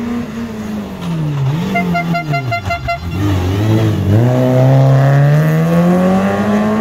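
Renault Clio rally car's engine coming off the throttle through a junction, its revs dropping and wavering, then rising steadily as it accelerates away. A quick string of about seven short beeps sounds about two seconds in.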